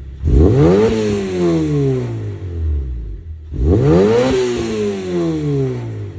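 Honda DC5 Integra's four-cylinder engine revved twice through a Maxim Works exhaust manifold, 70 mm mid-pipe and Mugen twin-loop muffler. Each quick rise in revs falls back toward idle.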